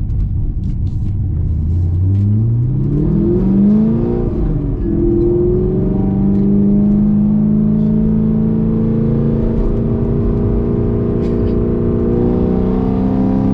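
2017 Camaro SS 1LE's 6.2-litre LT1 V8, fitted with a Texas Speed aftermarket cam, accelerating. Its pitch climbs from about two seconds in, and from about five seconds it holds a steady, even drone.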